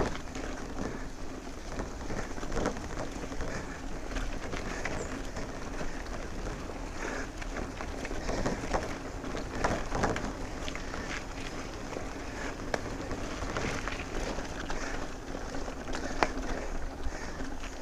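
Mountain bike rolling fast down a dirt and gravel road: steady crunch of knobby tyres on loose ground under a low rumble, with scattered knocks and rattles from the bike going over bumps.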